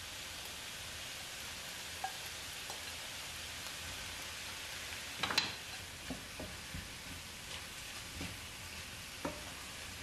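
Beef, rice cakes and vegetables sizzling in a hot pan, with a wooden spatula stirring and knocking against the pan several times, the loudest scrape about five seconds in.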